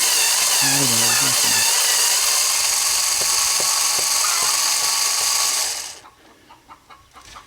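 Cordless screwdriver with an 8mm socket on a stack of 1/4-inch extensions running steadily, backing out the air box cover screws. It stops suddenly about six seconds in.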